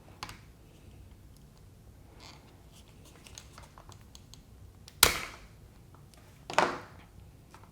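Hard plastic parts of an electric toothbrush being handled: light clicks, then two sharp knocks about a second and a half apart, the first the loudest.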